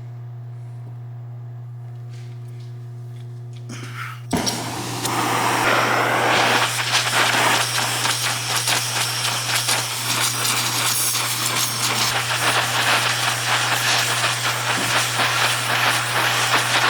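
Oxy-acetylene torch lit with a sharp pop about four seconds in, then its flame hissing loudly and steadily as it heats the jaws of a pair of locking pliers for bending. Before the pop, only a steady low hum.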